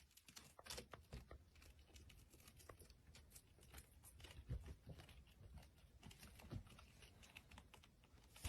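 Near silence: faint room tone with scattered small ticks and a couple of soft taps.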